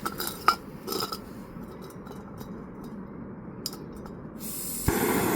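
A few metallic clinks of a BRS 3000 ultralight gas canister stove being handled. Near the end a hiss starts as the gas is turned on, then a pop as it lights, and the burner runs with a steady loud roar.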